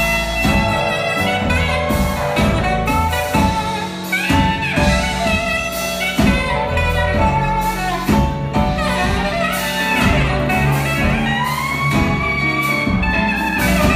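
Live jazz band playing an instrumental passage: a saxophone plays a gliding melodic line over piano, upright bass and drums.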